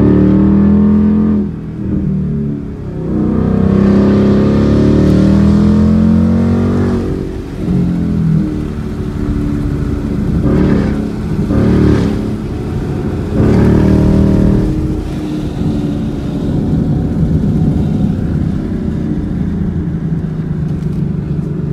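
2020 Mustang GT's 5.0 Coyote V8 through a Pypes exhaust, heard from inside the cabin, accelerating hard in several rising pulls with brief dips as the 10R80 automatic shifts up. It then settles into steady cruising.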